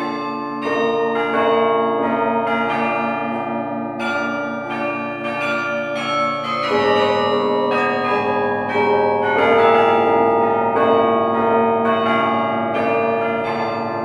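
Carillon tower bells played from the baton keyboard: a melody of struck bells ringing on over one another, with a low note repeating evenly underneath through the first half and the chords shifting about halfway through.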